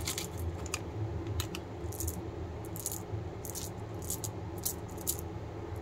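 Cadbury Gems, small candy-coated chocolate buttons, being shaken out of a torn plastic wrapper into a palm. They make scattered light clicks and rattles, mixed with crinkles of the wrapper, over a steady low hum.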